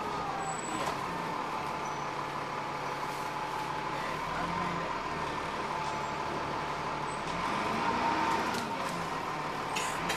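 Dennis Trident double-decker bus with a three-speed Voith gearbox, heard from inside on the upper deck while under way: engine and transmission running with a steady whine over road noise. The drive picks up in pitch and gets louder about three-quarters through.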